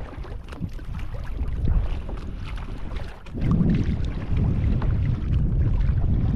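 Wind buffeting the microphone on an open-water kayak, with choppy waves slapping and splashing against the kayak's hull. The wind drops briefly about three seconds in, then picks up louder.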